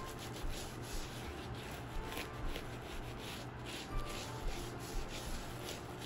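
Bare palm rubbing and spreading spiced butter over a sheet of teff injera, a soft scraping swish with each stroke, about two strokes a second.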